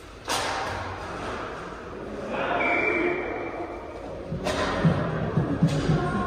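Sharp knocks of inline hockey sticks and puck striking the boards, three of them, echoing in a large rink hall, with players' voices calling near the end.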